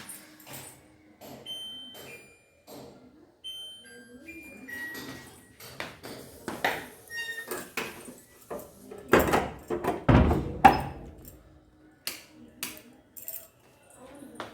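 Household handling noises: scattered knocks and clinks with short metallic rings, and a couple of heavier thuds about nine to eleven seconds in.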